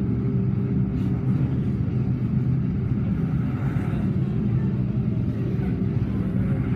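Steady rumble of a car driving on a highway, from dashcam driving footage played through classroom speakers, giving it a boomy, roomy sound.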